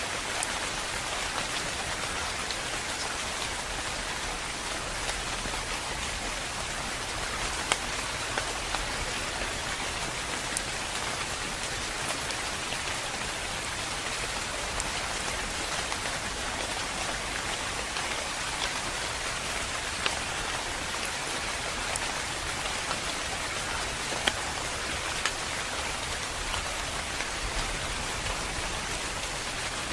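Steady, calm rain falling on a surface, an even hiss with scattered sharper individual drop taps.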